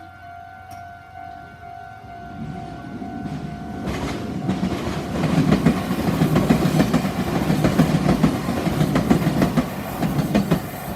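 A Japanese level-crossing warning bell rings with a steady pulsing tone. Then a train comes up and passes over the crossing from about four seconds in, its wheels clattering rhythmically over the rail joints and drowning out the bell.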